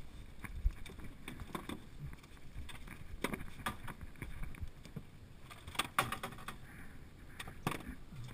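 Irregular knocks and clatter of a dip net and gear being handled against a metal boat, strongest three times, over a low steady rumble.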